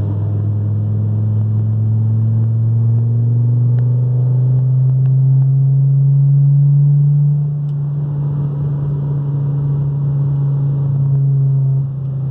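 2012 Volkswagen Beetle's 2.5-litre five-cylinder engine running while driving, heard from inside the car. The engine note climbs slowly for the first several seconds, eases off about seven seconds in, then holds steady.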